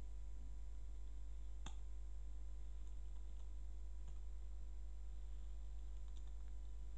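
A few faint computer keyboard clicks, the clearest about 1.7 s in, over a steady low electrical hum.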